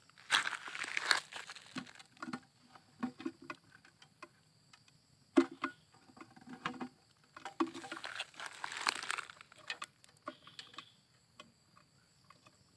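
Rustling, scraping and knocking as a gloved hand handles a small glass-sided insect cage on gravel: a burst of rustling about a second in, a single sharp knock near the middle, and another longer burst of rustling later, with small clicks in between.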